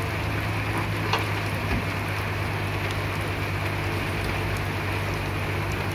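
Caterpillar E120B excavator's diesel engine running steadily under a low hum, with a steady hiss over it and one short click about a second in.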